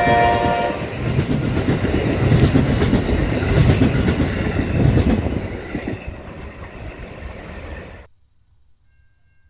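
An Amtrak passenger train's horn ends within the first second. The coaches then roll past with a heavy rumble of wheels on rail, swelling and easing in a rough rhythm, fading from about six seconds in and cutting off abruptly at about eight seconds.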